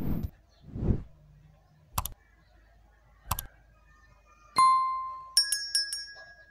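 Edited-in YouTube subscribe-reminder sound effect: two short swishes, two sharp mouse-style clicks, then a single ringing ding and a quick jingle of bell chimes.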